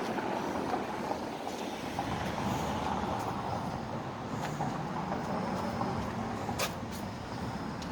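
Street traffic: a steady noise of passing vehicles, with one short click about six and a half seconds in.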